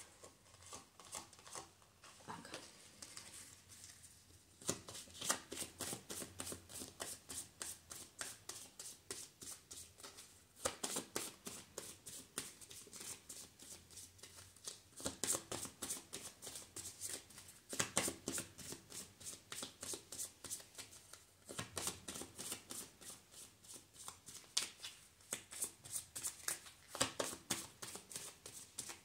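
A deck of Lenormand fortune-telling cards being shuffled by hand: a quick run of soft card flicks that gets going about four seconds in and carries on in stretches.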